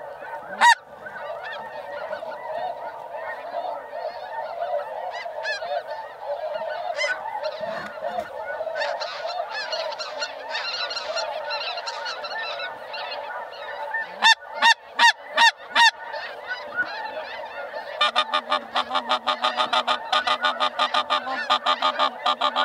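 Snow geese calling in a large flock overhead, a continuous clamour of many overlapping honks. Louder honks stand out: five in a row about midway, and a fast, even run of honks near the end.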